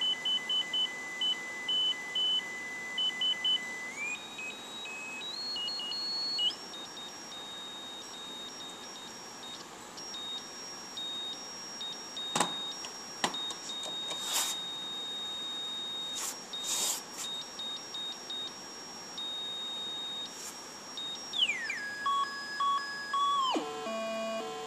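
1972 Triadex Muse tone generator playing a sequence of high-pitched electronic beeps that step upward in pitch, then holds a long high tone broken by a few clicks. Near the end the pitch slides steeply down as the pitch control is lowered, and a lower run of notes follows.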